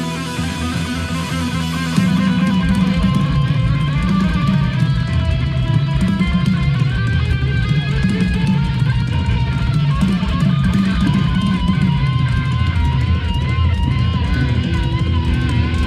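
Heavy metal band playing live and loud, electric guitars over bass and drums, the full band coming in louder and heavier about two seconds in.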